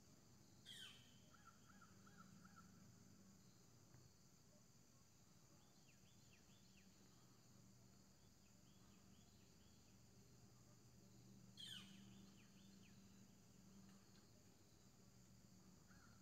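Faint birds calling in quiet woods: two sharp falling calls about eleven seconds apart, the first followed by a short trill, with soft quick chirps in between, over a faint steady low hum.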